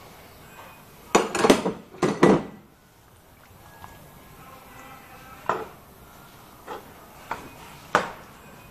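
Metal spoon clanking and scraping against a stainless steel pot while stirring noodles and vegetables: two loud clusters of clanks a little after a second in, then four single knocks spread through the rest.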